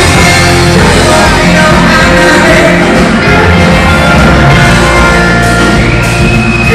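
Live rock band playing loud, with a singer's voice over the instruments.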